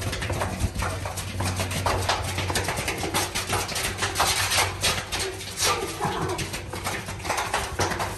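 Footsteps of several people walking on the gritty concrete floor of a bunker tunnel, a quick, irregular patter of scuffs and steps that echo off the concrete walls.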